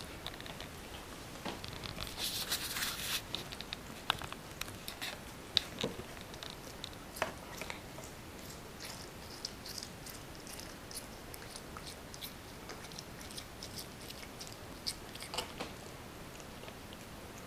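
A cat chewing and biting soft pieces of melon: irregular small wet clicks and crunches, busiest about two to three seconds in.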